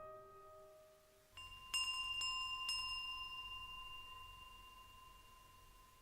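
A small bell or chime struck about three times in quick succession, its clear ringing tone then dying away slowly over several seconds. The last notes of a piano fade out at the start.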